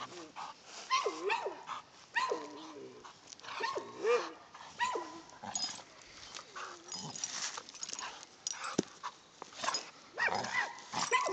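Blue nose pit bull tugging on a rope toy, letting out short whining yelps that rise and fall in pitch, about once a second at first and again near the end.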